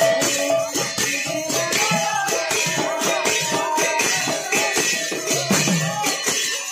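Kirtan music: small brass hand cymbals clashing in a steady rhythm, with a melody carried over them.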